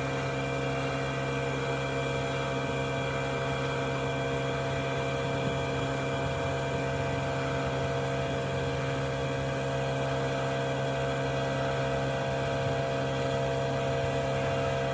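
A motor running steadily at constant speed, a continuous even hum with no changes in pitch or level.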